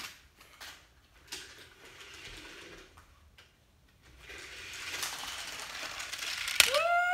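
A LEGO train running along plastic LEGO track, a whirring clatter that grows steadily louder as it comes nearer, after a few light clicks of plastic pieces being handled. Near the end a sharp click, and a child starts a long high-pitched cry.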